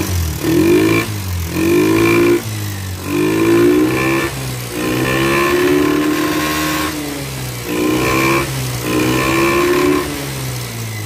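Yamaha Xeon scooter's carbureted single-cylinder four-stroke engine being revved up and down about six times with the throttle, dropping back to idle between blips. The engine is noisy with a rattle (ngeletrek) and is smoking from burning oil.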